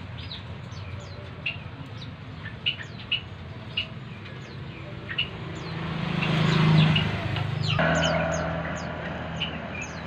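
Many caged small birds chirping: short, high, downward-sliding chirps in an irregular stream. In the second half, a louder swell of low hum and hiss builds, peaks and then drops off abruptly.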